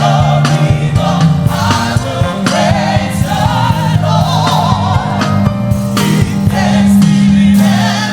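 Live gospel praise music: a choir singing with a band, with frequent percussive strokes under the voices.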